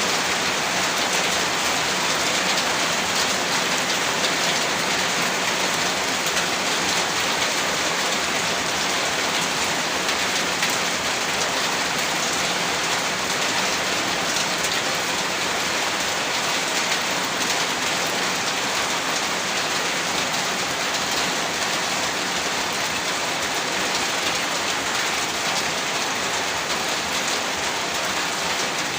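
Steady rain falling, an even, unbroken hiss of many drops with no thunder or other events.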